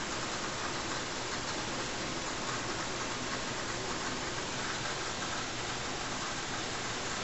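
Steady, even hiss with no other sound in it; no calls from the parrot.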